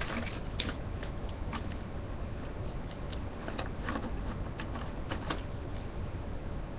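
Beads and wire being handled close to a webcam microphone: scattered light clicks and rustling over a steady low hum.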